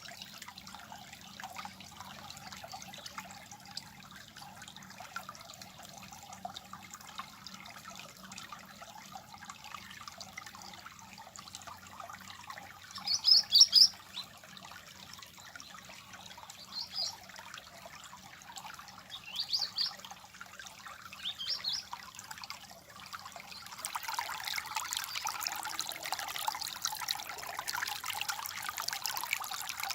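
Water trickling and babbling steadily, with a few short bird chirps in the middle, the loudest a quick pair about halfway through. Near the end the water sound grows louder and brighter.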